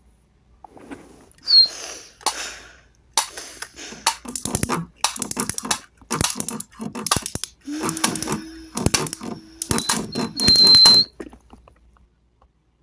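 Clattering and rattling from objects being shaken and handled, with two short high squeals and a steady low hum for about two seconds past the middle.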